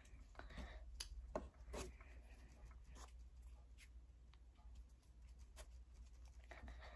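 Faint soft rubbing of palms rolling a lump of squishy modelling clay into a ball, with a few light ticks over a low steady hum; overall near silence.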